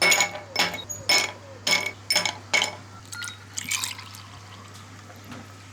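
Hard clinks of dishware, about two a second, each ringing briefly. Then, a little past the middle, liquid pours into a container, with a rising tone as it fills.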